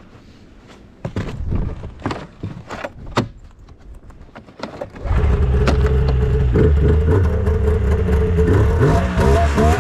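Scattered knocks and clicks, then about halfway through a snowmobile engine, the two-stroke 700 cc triple of a 1999 Yamaha Vmax, comes in suddenly and runs loud and steady, its pitch wavering near the end.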